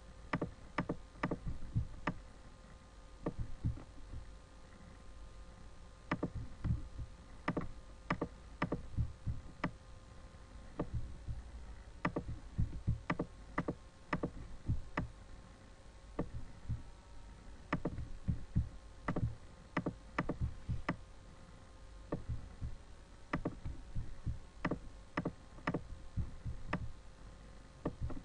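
Computer mouse and keyboard clicking irregularly, in quick runs of a few clicks with short pauses, over a faint steady hum.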